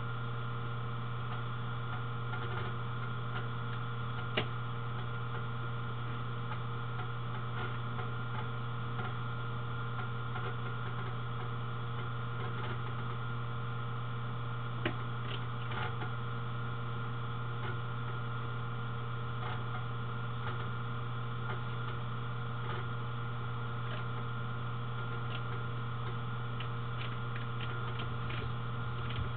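Steady electrical hum with a few faint, sharp clicks scattered through it, most of them near the end.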